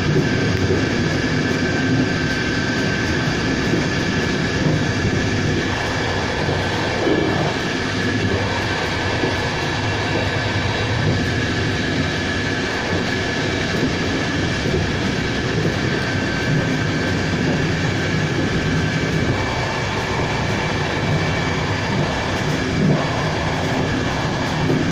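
Train running along the line, heard from its front end: a steady rumble of wheels on rail with a constant high whine and a few light knocks.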